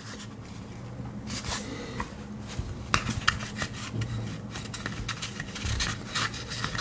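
Hands handling the packaging and a small pocket knife during an unboxing: a string of small clicks and taps with light rustling, the sharpest click about three seconds in.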